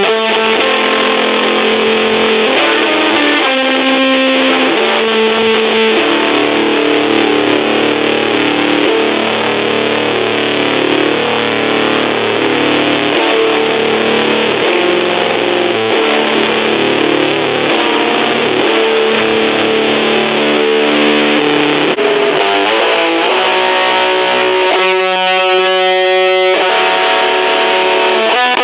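Electric guitar played through an overdrive pedal into a small battery-powered Junkbox Death Metal Drone amplifier, with loud, heavily distorted chords and riffs. Near the end the playing thins and one chord is held for a second or so.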